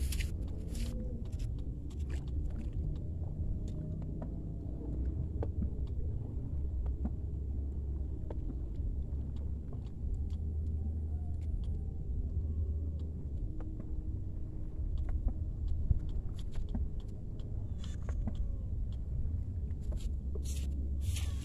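Steady low rumble with scattered faint clicks and knocks.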